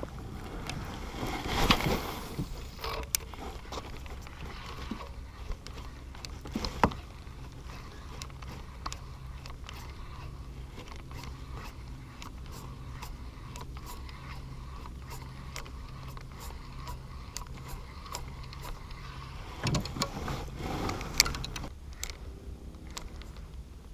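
Casting and retrieving a lure from a kayak: scattered knocks, clicks and scrapes of tackle and paddle against the hull, with louder clusters about two seconds in and near the end, over a steady low hum.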